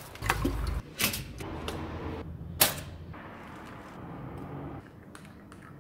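Kitchen handling sounds: a few sharp knocks and clicks, the loudest about two and a half seconds in, then lighter ticks near the end. They come from a bag of bread being taken out of a metal bread bin and a table knife spreading jam on bread on a plate.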